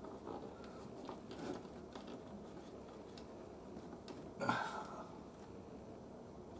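Faint handling noises of small tools and parts on a workbench: light taps and rustles, with one brief louder sound about four and a half seconds in.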